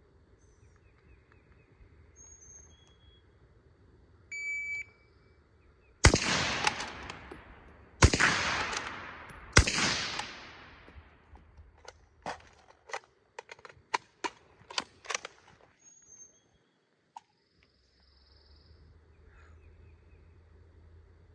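A short electronic shot-timer beep, then three shots from a Sig Cross bolt-action rifle in 6.5 Creedmoor, about two seconds and then a second and a half apart, each echoing away. A quick run of sharp clicks and knocks follows.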